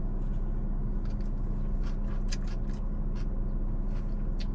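Steady low hum of a car engine idling, heard from inside the cabin, with scattered short clicks over it.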